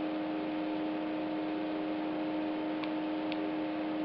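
Steady electrical hum over an even hiss, with two faint ticks about three seconds in.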